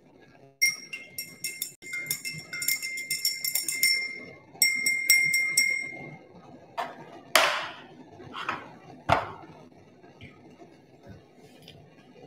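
Glass stirring rod clinking rapidly against the inside of a small glass beaker of hot sulfuric acid, the beaker ringing with each strike. The clinking stops about six seconds in, and a few short swishing sounds follow.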